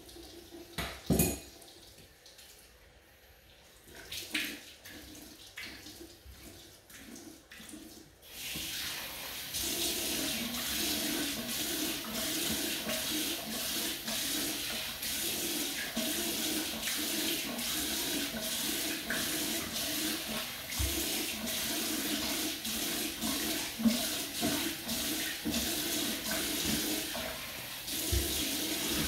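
Bathroom faucet running into the sink, turned up or nearer about eight seconds in, with water splashed by hand onto a freshly shaved face in repeated strokes.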